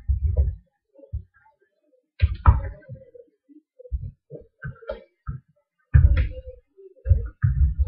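Hands mixing chicken pieces in a thick yogurt marinade in a bowl: irregular dull thumps, with a few brighter wet squishing sounds.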